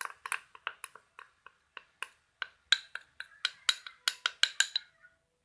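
A spoon tapping and clinking against a bowl as baking powder is spooned in: a quick, irregular run of light, sharp clicks, thickest in the second half.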